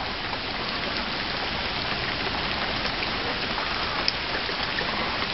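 Steady rain falling, an even hiss of rainfall that does not let up.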